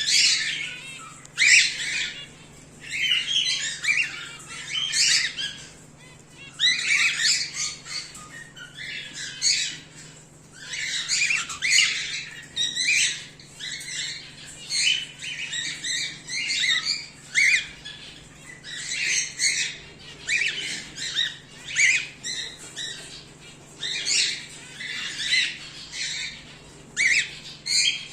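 Cockatiels calling: repeated short, high calls in quick clusters every second or two.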